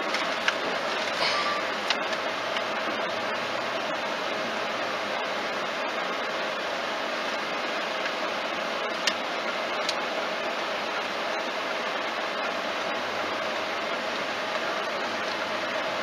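Steady cabin noise inside a slow-moving car, with a few scattered faint clicks.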